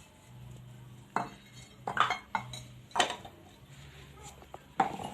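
Dishes and glassware clinking as they are handled and set down: about five separate sharp clinks, spread unevenly.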